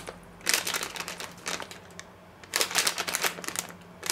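Plastic packet crinkling in two bursts as hands squeeze and shake ground almonds out of it into a bowl.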